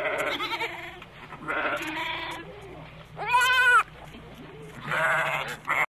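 A farm animal bleating four times, each call wavering in pitch, the third one loudest with a rise and fall in pitch; the sound cuts off suddenly near the end.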